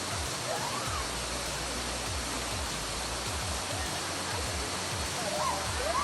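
Steady rush of falling water from a waterfall. Faint short pitched calls come and go over it, most of them near the end.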